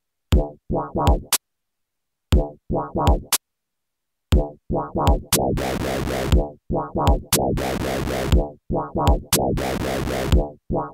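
Electronic beat from a Teenage Engineering Pocket Operator Sub pocket synth: short decaying bass notes and sharp clicks. It plays in short phrases broken by dead silence for the first few seconds, then runs on with a steady hiss added about five seconds in.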